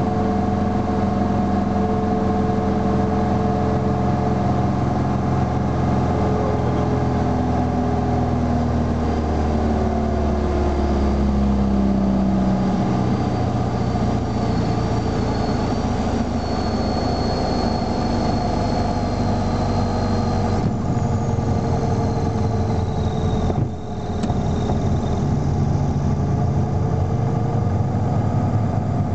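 Piper Cherokee's engine and propeller heard from inside the cockpit during the landing. The drone falls in pitch between about eight and thirteen seconds in as power comes off for touchdown, then runs steadily at a lower pitch through the rollout.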